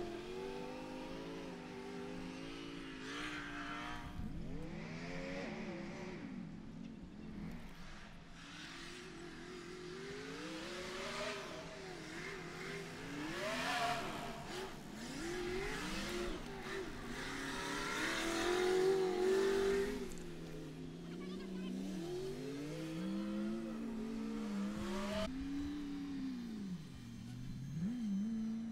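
Off-road race rig's engine revving up and down over and over as it crawls and climbs a rough trail, loudest about two-thirds of the way through.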